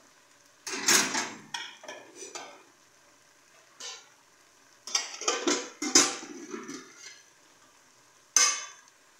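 Aluminium cooking pots, a pot lid and a metal spoon clattering: a run of clanks and scrapes about a second in, a short knock near four seconds, another cluster of clanks around five to seven seconds, and one sharp ringing clank near the end.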